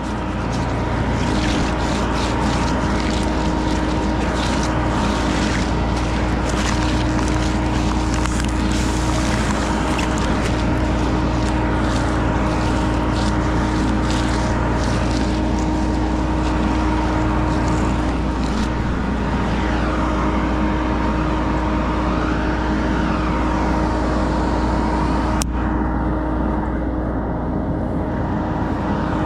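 An engine running steadily at a constant speed, with scattered light clicks over it in the first half and an abrupt change in the sound near the end.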